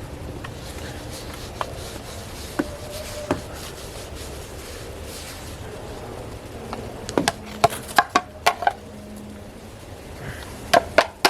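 Camp dishes being handled and scraped clean: a few scattered sharp clicks, then a quick run of loud clinks and knocks about seven to nine seconds in, and more near the end.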